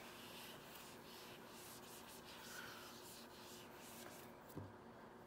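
Felt whiteboard eraser wiping marker ink off a whiteboard: a faint, steady rubbing. A soft bump about four and a half seconds in.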